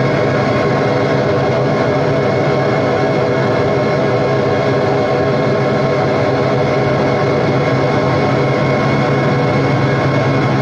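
Experimental noise music: a loud, unbroken drone of many layered sustained tones over a steady low hum, some of the middle tones wavering slightly.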